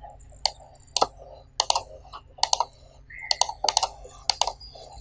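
Sharp clicks of a computer mouse and keyboard, about a dozen at irregular intervals, several in quick pairs.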